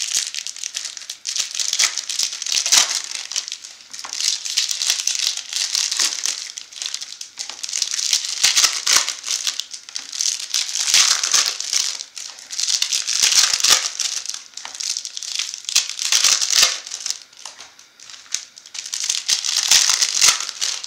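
Foil wrappers of Bowman Chrome baseball card packs being torn open and crinkled, in repeated crackly bursts every two to three seconds.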